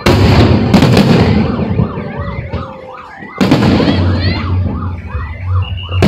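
Fireworks going off: a loud bang right at the start, another within the first second and a third about three and a half seconds in. Between them come many short rising-and-falling whistles from whistling fireworks.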